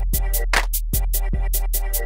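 Electronic theme music with a drum-machine beat: a steady kick about twice a second under crisp hi-hat and snare hits.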